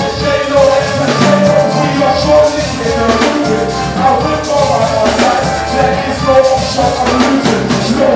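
Upbeat music with a drum beat, with some singing.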